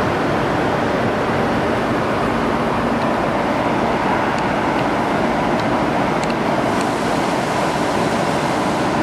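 Steady, even machinery noise of a tube-bending workshop, with a few faint light clicks midway.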